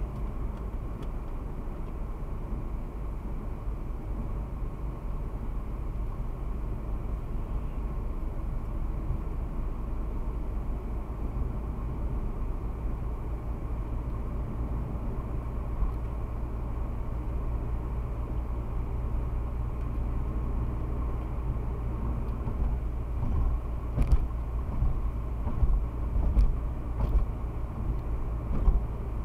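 Car driving at speed, heard from inside the cabin: a steady low rumble of engine and tyre noise. A run of irregular sharp thumps comes in over the last several seconds.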